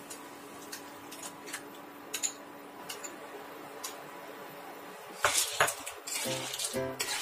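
A metal spoon clinking and scraping as sauce is scooped into a frying pan of clams: scattered light clicks, then louder clatter about five seconds in. Background music comes in near the end.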